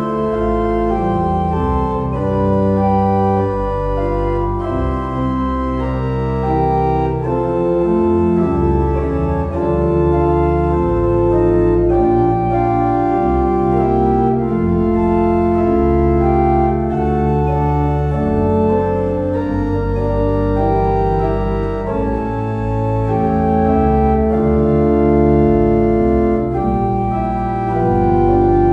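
Organ playing slow, sustained chords over deep held bass notes, the chords changing every second or two: a postlude closing a church service.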